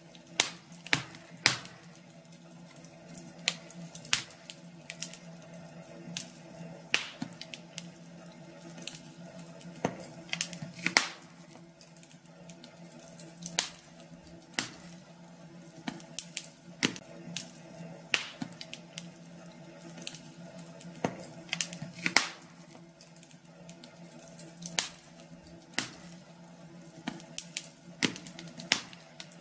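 Wood fire in a fireplace crackling: irregular sharp pops and snaps, roughly one or two a second, over a low steady background hum.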